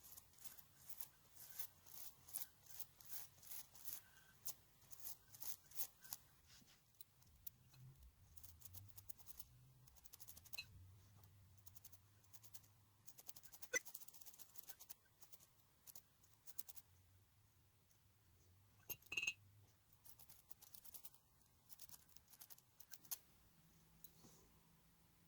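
Faint, light clicking and scratching from small hand work on a typewriter: ticks about two to three a second at first, then scattered, with one sharper click about halfway through.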